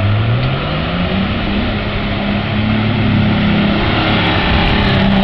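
Off-road 4x4's engine revving under load as it drives through a deep mud pit. Its pitch rises over the first second or so, then holds high and steady.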